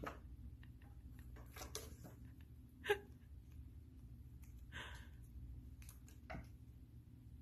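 Faint scattered taps and scrapes of cardboard jigsaw puzzle pieces as a cat paws and mouths them at the edge of a glass tabletop, with one sharper click about three seconds in, over a low steady hum.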